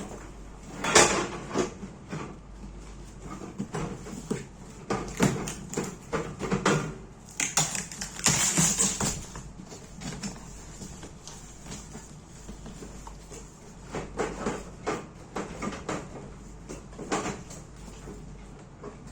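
Irregular handling noises: scattered knocks, clicks and rustles of objects being handled and set down, busiest about a second in, in the middle and again near the end. No motor is running.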